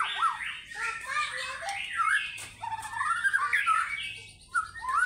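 White-rumped shama singing: a loud, varied run of quick whistled notes and rapid repeated chattering phrases, breaking off briefly near the end before going on.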